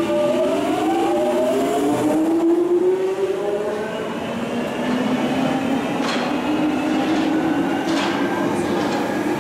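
London Underground 1996 Stock Jubilee line train pulling out of the platform, its traction motors whining in several tones that rise in pitch as it accelerates away. A few sharp clicks come from the wheels near the end.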